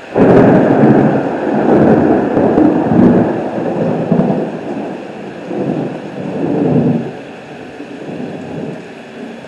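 Thunder from a lightning strike: a sudden loud crack that rolls on in several rumbles for about seven seconds and then fades, over steady rain.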